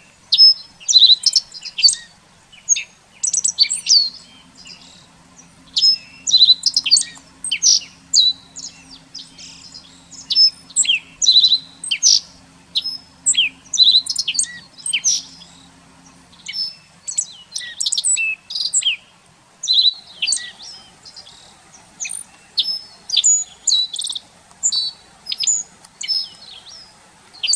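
Small songbirds chirping and calling busily, many short high notes in quick succession. A faint low hum comes in about four seconds in and stops about halfway through.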